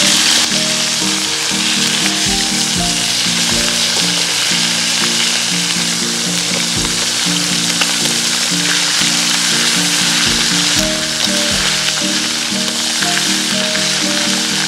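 Whole chicken deep-frying in hot oil in a wok: a loud, steady sizzle that never lets up. Background music with a melody plays underneath.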